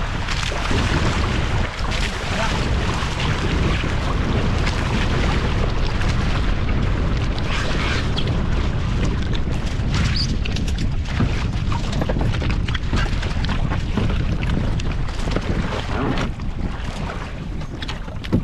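Wind buffeting the microphone in a steady low rumble, over water rushing and splashing against the hulls of a Hobie Cat catamaran under sail, with scattered sharp slaps.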